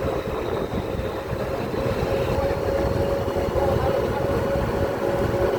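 Steady vehicle noise: a continuous low rumble with a steady mid-pitched hum.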